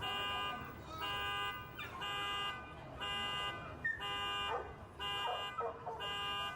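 Car alarm sounding a steady pulsing tone, about one pulse each second. A dog barks in the gaps between the pulses.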